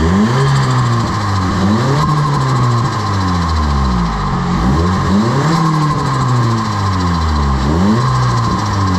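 Nissan SR20DET Blacktop turbocharged four-cylinder engine being revved from idle, the pitch climbing and falling back in a string of throttle blips.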